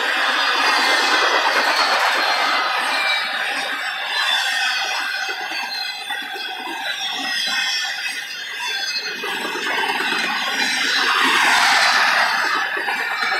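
Double-stack container well cars of a freight train rolling past at track speed: a steady wheel-on-rail rumble and hiss that dips slightly in the middle and grows louder near the end.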